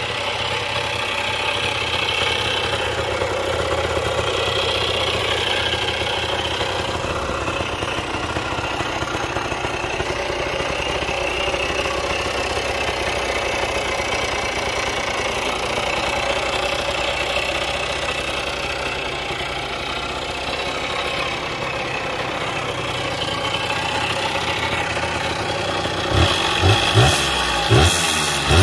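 Freshly rebuilt Suzuki DS80's small two-stroke single idling through a Polini exhaust, running steadily. Near the end the throttle is blipped a few times, each rev rising and falling quickly.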